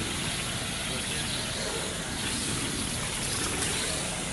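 Gas brazing torch flame hissing steadily while copper pipe is brazed.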